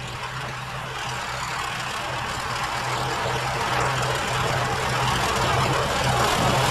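John Deere 1032 snowblower with a modified 16 hp engine running steadily under load while throwing snow, growing louder as it comes closer.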